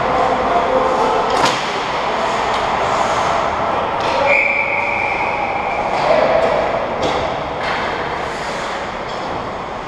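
Ice hockey play in a rink: skates scraping the ice with sticks and puck clacking, and sharp knocks about a second and a half in and again around seven seconds.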